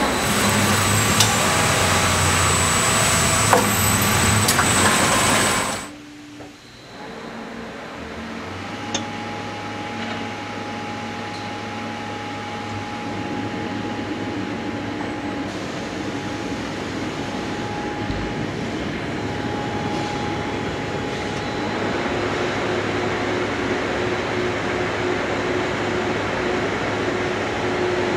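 Packaging-line machinery running: motors and chain conveyors carrying a wrapped pallet. Dense, loud machine noise stops abruptly about six seconds in. A quieter, steady hum follows, with a faint high whine running through it.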